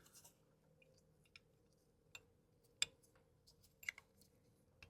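Near silence broken by a few faint, sharp clicks spaced unevenly, from a brake pad being handled and pushed into its slot in a Brembo brake caliper.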